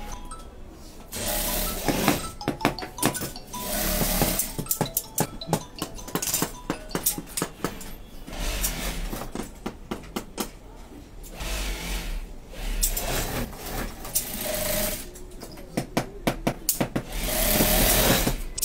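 Industrial sewing machine running in short bursts of a second or two, several times over, with sharp clicks and rattles between the runs.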